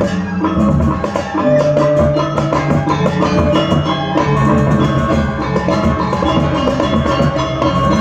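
Balinese gamelan ensemble playing a bebonangan-style piece: ringing bronze gong-chimes and metallophones over drums, loud and continuous with dense struck notes.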